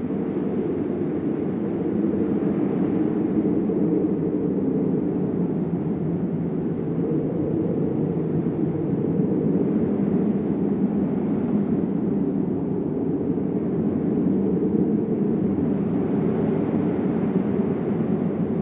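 Wind sound effect: a steady, low rushing rumble of air that rises and falls gently in loudness.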